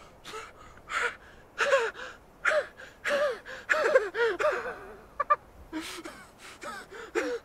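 A man's voice in a string of short, strained, pitched gasps, one or two a second.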